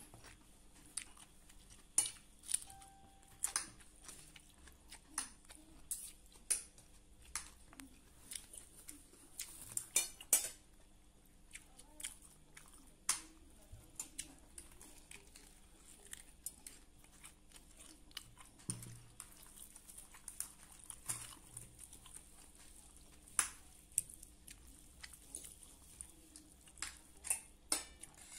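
A person eating close to the microphone: chewing, with irregular sharp clicks and clinks scattered throughout, a few louder ones around ten seconds in and near the end.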